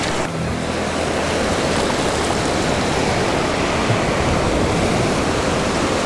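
Ocean surf washing onto the beach: a steady rush of noise.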